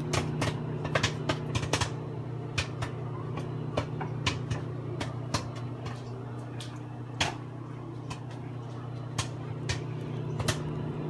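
Microwave popcorn popping inside a running Samsung microwave oven: sharp, irregular pops, several a second, over the oven's steady hum.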